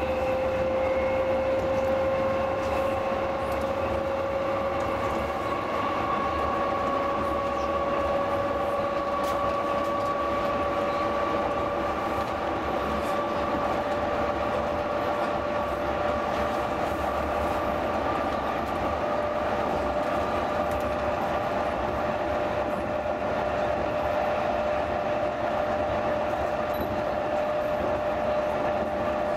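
Heritage 1500 V DC electric train running: a steady whine from the traction motors that rises slowly in pitch as the train gathers speed, over a continuous low rumble of the running gear.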